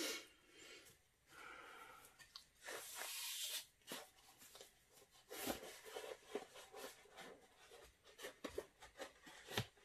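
Faint rustling, crinkling and clicking of objects being handled, with a brief hiss about three seconds in.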